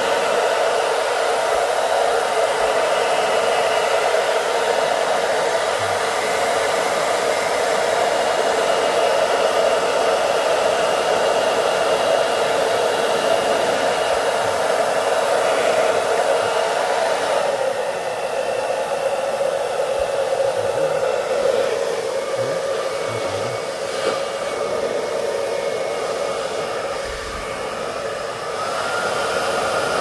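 BaByliss Pro Silence 2200W AC-motor hair dryer running steadily: a rush of air over a steady hum. The sound drops a little about halfway through and comes back up near the end.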